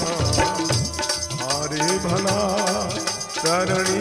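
Rajasthani devotional chirja music: a wavering melody over steady percussion.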